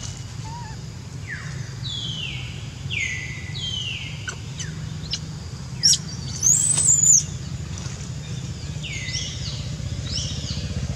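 Infant long-tailed macaque squealing: a series of short, high calls that fall in pitch, with a sharper, louder scream about two-thirds of the way through.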